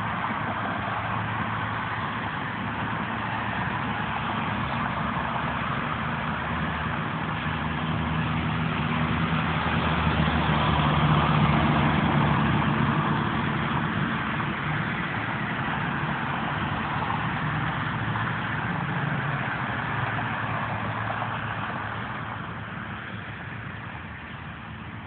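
Road traffic: a steady low engine hum with road noise, swelling to its loudest about ten to thirteen seconds in as a dump truck and a box truck pass, then easing off near the end.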